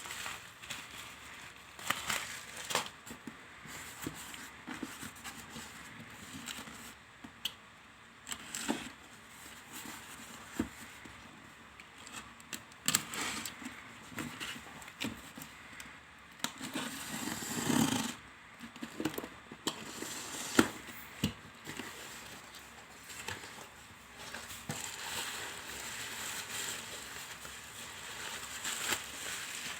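Parcel packaging being opened by hand: irregular clicks, crinkling plastic wrap and cutting or tearing of tape, with a louder bout of handling about seventeen seconds in.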